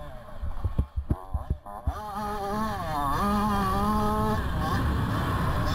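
Motocross bike engine heard from the bike itself: a few sharp knocks while off the throttle through a corner, then hard acceleration about two seconds in. The pitch dips at a gear change about a second later, and the engine then holds high revs.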